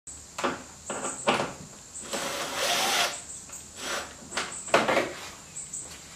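Cordless drill running bolts through the splitter into the bumper. It goes in short trigger bursts, with one longer run of about a second near the middle.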